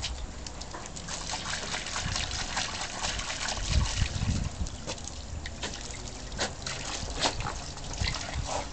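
Water splashing and trickling as a Cairn terrier plays in it, with irregular splashes and a few dull low thumps about four seconds in.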